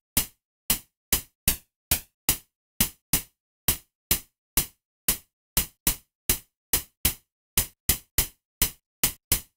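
Synthesized snare drum, made from filtered white noise shaped by a short envelope with a little delay adding thickness. It is played over and over at about three uneven hits a second, each a sharp crack that dies away quickly.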